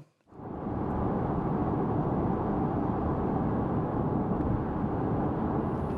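Steady low rumbling noise with no clear tones, fading in just after a cut and holding level throughout.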